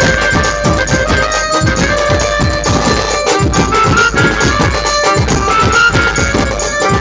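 Loud DJ Dhumal music: fast, repeated bass drum hits that drop in pitch over a steady deep bass, with a folk melody line on top.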